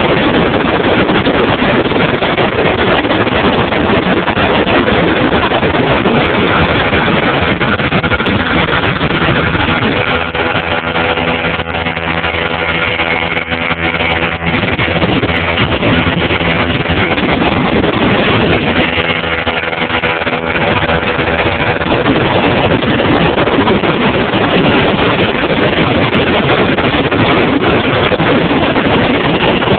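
Motorboat engine running under way at towing speed, with a loud rushing wind-and-water noise over the microphone. The engine's steady hum comes through more clearly about ten seconds in and again around twenty seconds.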